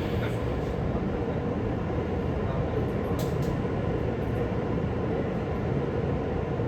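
Tokyu 5050 series electric commuter train running at steady speed: an even rumble of wheels on rail, with a faint brief click about three seconds in.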